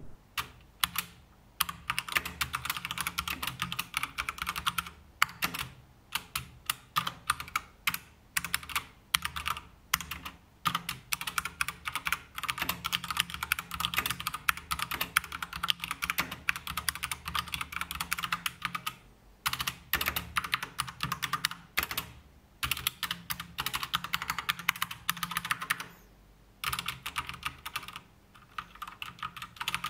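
Typing on an Akko 3087 tenkeyless mechanical keyboard with Akko pink switches, which are linear like reds: fast, continuous keystrokes broken by a few short pauses.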